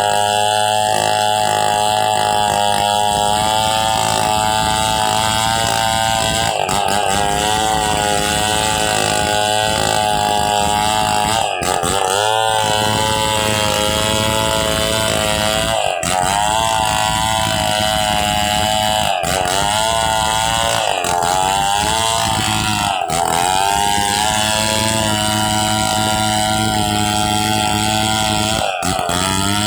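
Two-stroke chainsaw running at high revs, steady and loud. Its pitch sags briefly and recovers about seven times, as the engine bogs under load.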